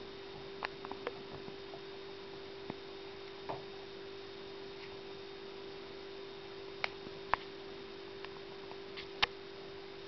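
A steady hum held on one pitch, with a few short faint clicks scattered over it, a small cluster about a second in and a few more near the end.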